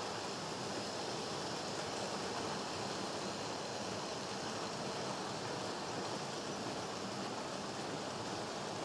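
Several model trains running at once on a model railway layout: a steady, even rolling whir of motors and wheels on the track.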